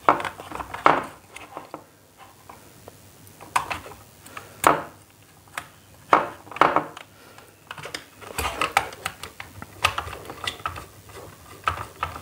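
Irregular plastic clicks, taps and scrapes of hands working wires into the screw terminal of a plastic modular switch on a switch board. In the second half there is a run of quick small ticks as a screwdriver works the terminal screw.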